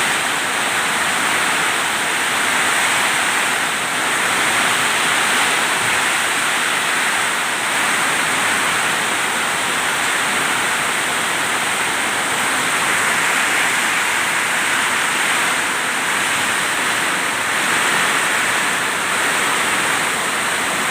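Heavy storm rain pouring down in a dense steady hiss that swells and eases slightly every few seconds.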